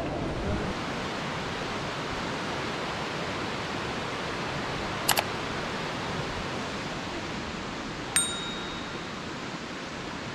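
Steady rush of the Murat River's turbulent whitewater below the bridge. About five seconds in there is a quick double mouse click, and about eight seconds in a bright bell ding, both from a subscribe-button sound effect.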